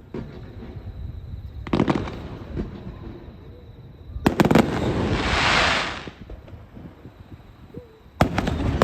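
Aerial firework shells bursting: a bang about two seconds in, another at about four seconds followed by a second and a half of loud hiss, and a third bang near the end.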